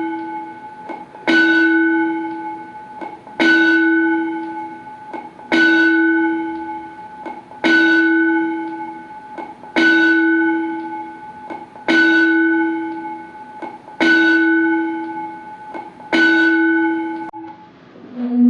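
A school bell played by an automatic bell system, one bell struck eight times about every two seconds, each stroke ringing out and fading before the next. It signals the start of a class period.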